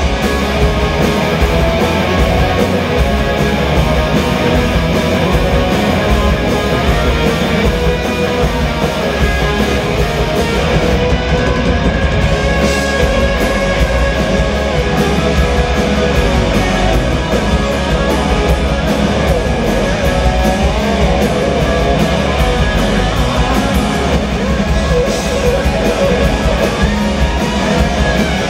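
Rock band playing live and loud: electric guitars over a drum kit.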